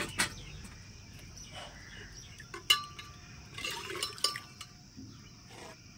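A metal kettle set down with a knock, then a metal ladle stirring rajma beans in liquid in a metal pot, clinking against the pot several times with a short metallic ring.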